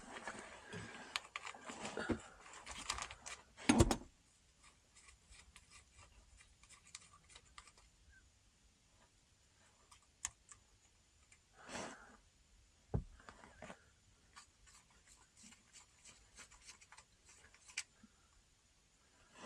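Small metal engine parts and tools being handled, clinking and scraping, with a sharp knock about four seconds in. After that there are only scattered faint clicks and a few brief handling noises.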